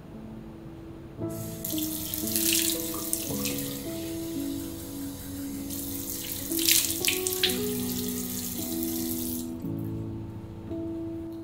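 Bathroom basin tap running into a ceramic sink, starting about a second in, with water splashing as hands move under the stream, then shut off shortly before the end. Soft instrumental music plays throughout.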